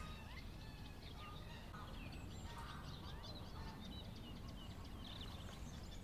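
Many small birds chirping and singing in quick, overlapping notes over a steady low rumble.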